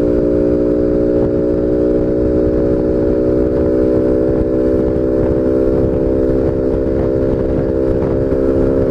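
Honda Biz 125's single-cylinder four-stroke engine running at a steady high speed under load while riding, its note made loud by a sport air filter. The pitch holds constant throughout, with wind noise on the microphone underneath.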